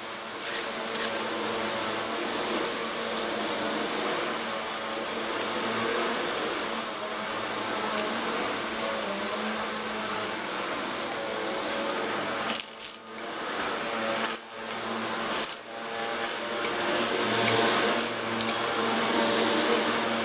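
A steady machine whir with a thin high whine over a low hum, cutting out briefly three times near the middle.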